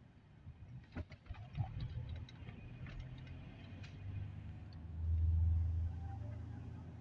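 Car engine and road rumble heard from inside the cabin, swelling louder about five seconds in, with a few light clicks in the first seconds.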